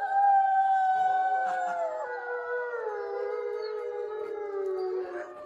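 Grey wolves howling in chorus: several long, overlapping howls at different pitches, held steady and then sliding slowly downward.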